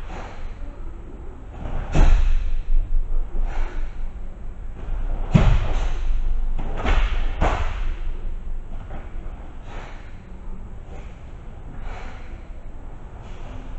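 A karate gi snapping with fast strikes and bare feet thudding and stamping on mats: a string of sharp snaps and thuds, the heaviest about five seconds in, with lighter, more spaced ones toward the end.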